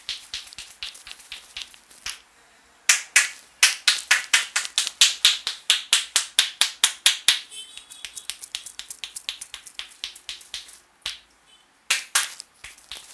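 Rapid, even slaps of a barber's hands striking the head during an Indian head massage, about four a second. Light taps at first, a brief pause about two seconds in, then loud strokes, lighter and quicker ones, and two loud strikes near the end.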